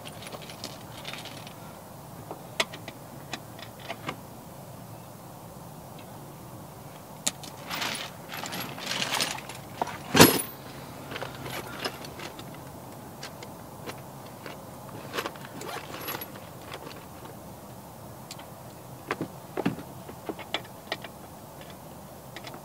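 Metal sockets and hand tools clinking and rattling in a canvas tool roll as a different socket size is picked out, with scattered clicks and one loud, sharp clack about ten seconds in.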